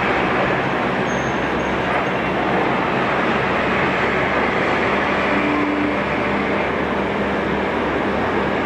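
Steady, unbroken noise of heavy city traffic on an elevated expressway and the busy streets below: an even wash of engines and tyres, with a short low tone about halfway through.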